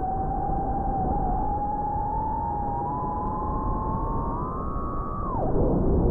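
FPV quadcopter motors whining over a rush of wind: the pitch holds, then climbs slowly as throttle is added, and drops sharply about five seconds in as the throttle is chopped, wavering lower afterwards.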